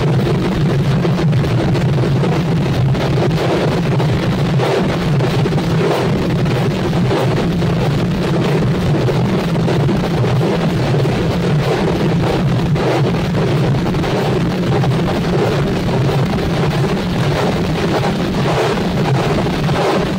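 Singh Baja folk drum band playing loudly: many drums beaten together in a dense, continuous rhythm.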